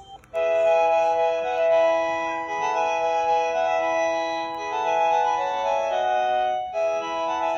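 Panasonic KX-TGF574S cordless phone playing one of its built-in ringtones: a slow electronic melody of held, organ-like notes. The tune starts just after a brief break at the beginning, then cuts out briefly near the end and starts over.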